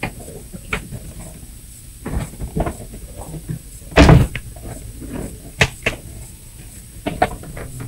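A few scattered knocks and clicks as things are handled and moved about, with one louder thump about four seconds in and a few sharp clicks after it.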